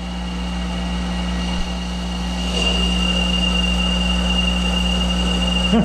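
Monarch 10EE lathe running with a steady hum while a carbide insert turns a bar of hard pre-hardened steel. About two and a half seconds in, a steady high-pitched whine from the cut sets in and holds.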